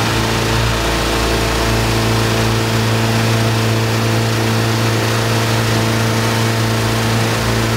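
Tow boat's engine running steadily at speed, close up and loud, its pitch holding even as it pulls a water-skier.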